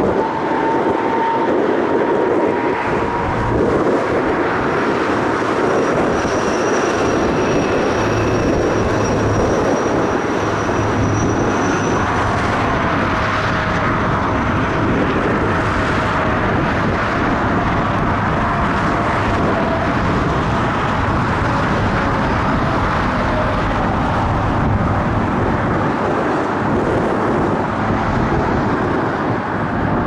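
Jet airliner engines running: a steady loud rush with a thin turbine whine on top, one whine sliding slowly down in pitch through the middle.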